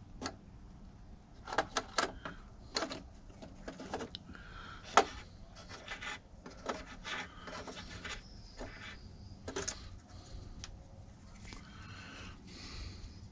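Scattered light clicks, taps and rubbing of hands working a small wooden model boat hull loose, the sharpest click about five seconds in.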